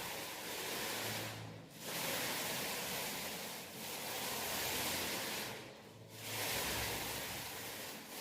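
Paint roller rolling over a wall in long strokes: a sticky hiss that swells and fades with each pass, breaking off briefly twice as the roller changes direction.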